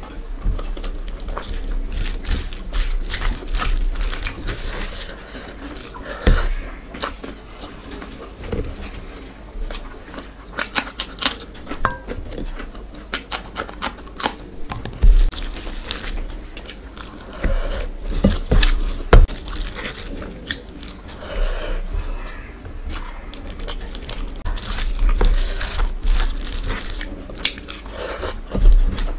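Close-miked eating sounds: wet chewing and lip smacking with clusters of sharp clicks, as mouthfuls of rice and curry are eaten by hand.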